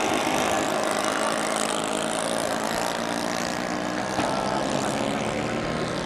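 Twin engines of a radio-controlled model flying boat running steadily as it flies low past over the water.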